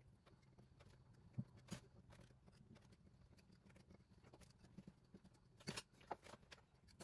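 Near silence with a few faint clicks and taps of metal being handled as a threaded rod in a ceiling expansion bolt is tried by hand: a pair about a second and a half in and another pair near the end, over a faint low hum.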